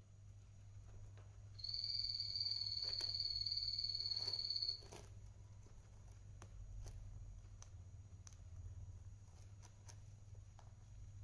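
A single steady high-pitched beep, holding one pitch for about three seconds from about a second and a half in, then cutting off. Around it are faint scattered clicks and rustles of a long-haired guinea pig chewing hay.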